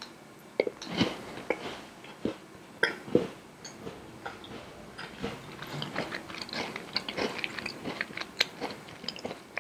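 Close-up eating sounds of a yakgwa, a Korean honey-fried cookie that is crisp outside and moist inside: a few crisp bites in the first three seconds, then steady chewing with many small, irregular crunchy clicks.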